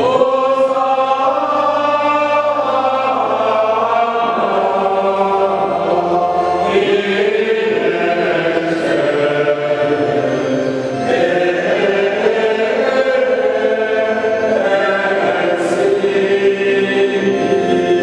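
Choir singing a liturgical hymn in several voices, holding long notes and moving steadily from note to note.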